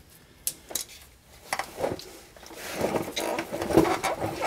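Light clicks and knocks of a gloved hand handling the slack adjuster's clevis pin and pin retainers on an air brake chamber, with a longer stretch of shuffling handling noise in the second half.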